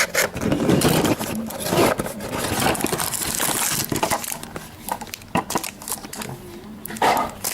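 A trading-card box and its packaging being opened by hand. Irregular crinkling of wrapper, with rubbing and scraping of cardboard and card stock.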